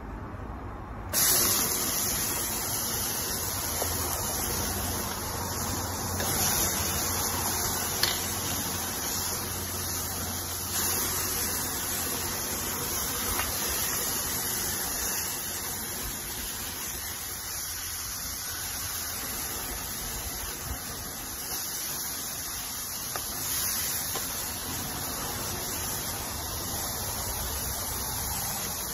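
Pork and chicken pieces sizzling in a hot oiled grill pan on a gas side burner. The sizzle starts suddenly about a second in, as the meat goes into the pan, and carries on as a steady loud hiss.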